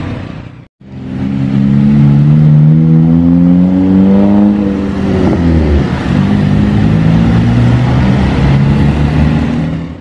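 A vehicle engine pulls up a steep climb. Its pitch rises steadily for a few seconds, drops about halfway through, then holds steady at a lower pitch. The sound cuts out briefly under a second in, and again at the end.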